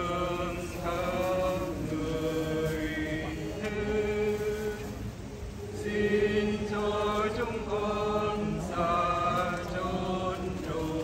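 A group of voices chanting a religious hymn in unison, in held sung phrases with short breaks between them.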